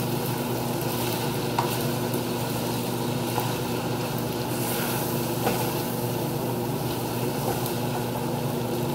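Spaghetti and shrimp sizzling in olive oil in a frying pan, stirred and tossed with kitchen utensils, with a few light scrapes of the utensils against the pan over a steady low hum.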